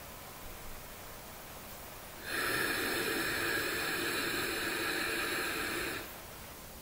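One long, steady breath through the nose, starting about two seconds in and lasting nearly four seconds, then stopping abruptly: a slow, paced box-breathing breath.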